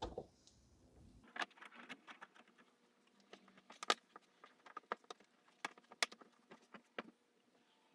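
Plastic splash shield and its fasteners being handled and fitted back in place under a car's front bumper: a low bump at the start, then a string of irregular sharp clicks and light rattles.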